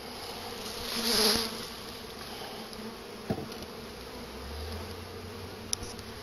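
Loose honey bees buzzing steadily around a newly installed hive, a continuous many-winged drone. A brief rush of noise about a second in is the loudest moment, and a couple of light knocks and clicks sound later on.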